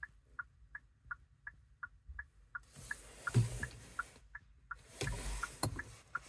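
Rapid electronic chime beeping at a steady pace of about three short beeps a second, from the car or the key programmer during key programming. In the later half, two stretches of hissing or rustling noise and a low thump pass over it.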